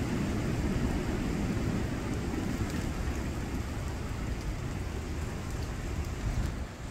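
Steady rushing noise of rain and floodwater on a flooded road, with a low rumble underneath; it dips slightly near the end.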